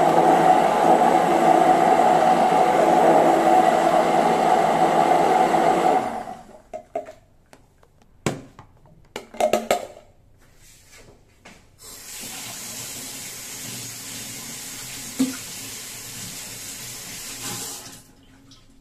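Electric blender motor running steadily, then stopping about six seconds in. A few clicks and knocks follow, then a tap runs water steadily for about six seconds before being shut off.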